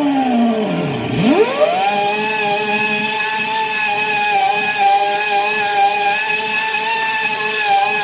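Pneumatic die grinder buffing the rubber inner liner of a tire to prepare a patch area: its whine drops about a second in, then climbs back and holds a steady high pitch over a hiss of air.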